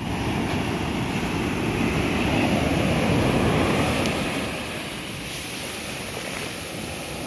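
Sea waves breaking and washing, a steady rushing noise that swells over the first few seconds and eases off at about four and a half seconds.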